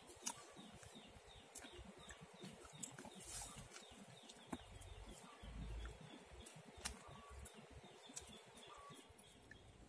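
Quiet outdoor ambience: a faint, short chirp repeated evenly about four times a second, with a few soft clicks scattered through.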